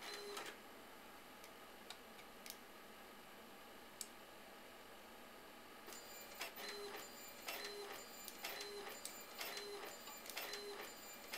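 Epson Stylus 740 inkjet printer printing a photo. It is quiet at first apart from a few faint clicks, then from about six seconds in the print head shuttles about once a second, each pass with a short whirring tone.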